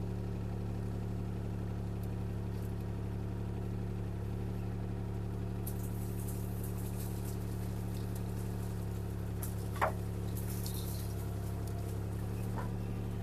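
CAT 303C CR mini excavator's diesel engine running at a steady, even hum while the boom and bucket are worked. A few brief scratchy noises and a short squeak near ten seconds in sound over it.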